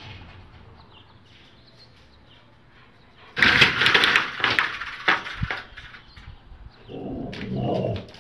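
Faint bird chirps, then about three seconds in a metal-framed sliding screen door falls out of its track with a sudden loud crash and clatter that rattles on for a second or so. Near the end there is more rattling and scuffling as a dog pushes out through the pet door flap.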